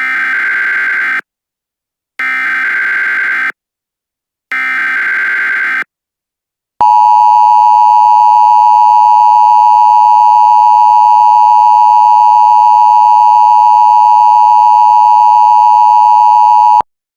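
Emergency Alert System header tones: three short bursts of data tones, each a little over a second, about a second apart. Then the steady EAS attention tone starts about seven seconds in, holds for about ten seconds and cuts off just before the end.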